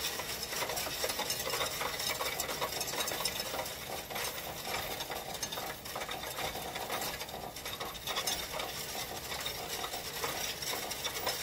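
Loose coins rattling and clinking continuously through a Coinstar coin-counting machine as they are fed in and counted.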